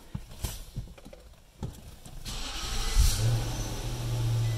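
Infiniti FX50's 5.0-litre V8 started by push button: a few clicks, a short burst of cranking, then the engine catches about three seconds in and settles into a steady idle.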